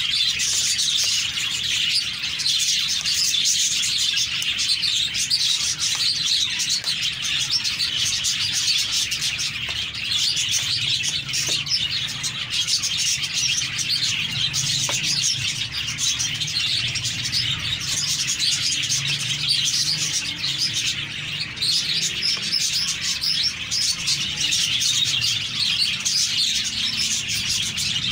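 Many small birds chirping at once in a dense, continuous chorus.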